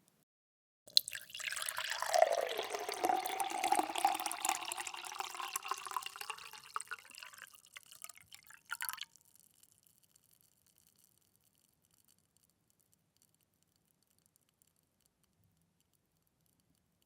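Water poured in a steady stream into a glass, the splashing tone rising in pitch as the glass fills. The pour stops with a last splash about nine seconds in, leaving a faint ringing.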